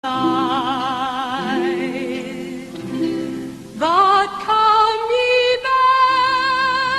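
Music with a singing voice: long held notes with a wide vibrato, then a new phrase that slides up into steady held notes about four seconds in, over a soft accompaniment.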